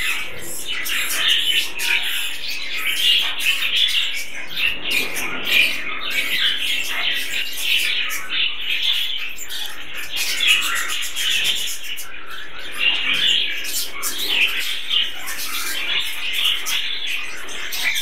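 A colony of budgerigars chattering: a dense, continuous mix of many short chirps, squawks and warbles.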